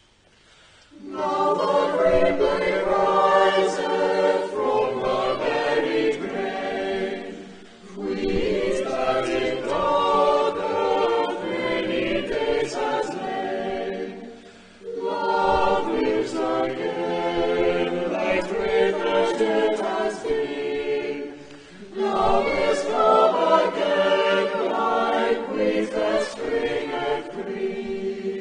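Church choir of children's and adult voices singing in parts, beginning about a second in and moving in four long phrases with brief breaks between them.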